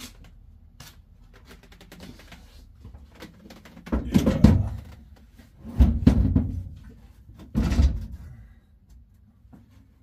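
A Sparco bucket seat being set into a stripped car, bumping against the bare metal floor and seat mounts: three heavy thumps about two seconds apart, with small clicks and rustling before them.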